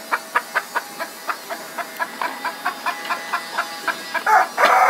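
Chickens clucking in a quick, even run of short clucks, about four a second; near the end a rooster starts to crow.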